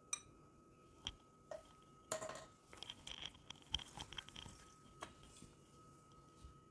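Faint, scattered small clicks and taps of candy-coated chocolates being dropped onto ice cream in a glass bowl, busiest in the middle, over a faint steady hum.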